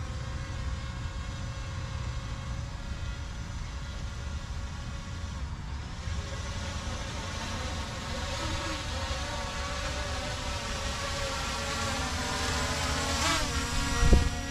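Multirotor fishing drone flying back in, its propellers making a wavering whine that grows louder over the last few seconds as it passes close overhead, over a low rumble of wind on the microphone. A single sharp thump near the end is the loudest sound.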